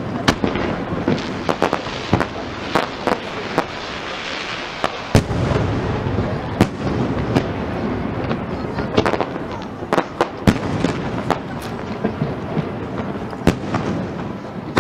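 Fireworks shells bursting in quick, irregular succession: sharp bangs over a continuous crackle, with the bangs coming thickest about nine to ten seconds in.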